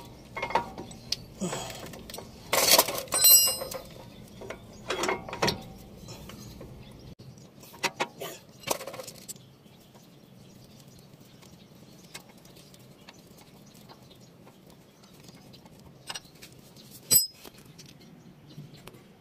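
A ratchet wrench clicking and clinking against metal as a brake caliper bolt on a BMW X5 E53 is tightened. The clicks come in quick irregular bursts, some with a short metallic ring, for the first several seconds. After that it is mostly quiet, with two sharp metal clicks near the end.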